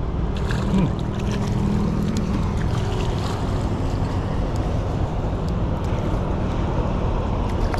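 Steady low rumbling noise with light splashing from a hooked tilapia thrashing at the water's surface.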